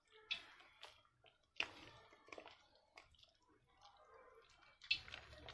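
A bare hand squishing and working thick gram-flour (besan) batter in a steel bowl, giving a few faint, irregular wet squelches.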